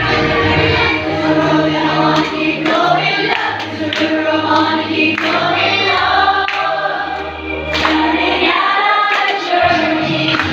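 A group of people singing together over music with a steady bass line, clapping their hands along.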